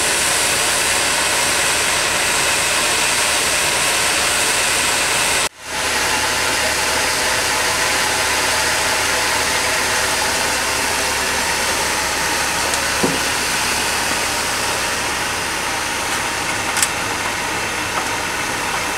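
Steam rushing steadily out of the fittings atop a Farquhar overtype engine's boiler, a loud, even hiss. It breaks off for a moment about five and a half seconds in, then carries on, easing a little toward the end.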